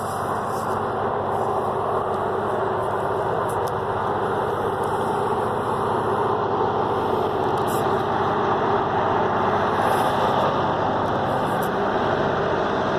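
EMD SW1500 diesel switcher locomotive's 12-cylinder 645 engine working in notch 8 at full throttle, pulling hard under load, its steady drone growing louder as the locomotive approaches.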